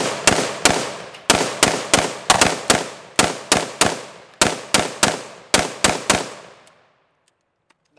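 Rapid semi-automatic gunfire from two short-barrelled AR-15 pistols firing at once, about three shots a second, unevenly spaced and sometimes overlapping, each crack trailing a short echo. The shooting stops about six seconds in and the echo fades.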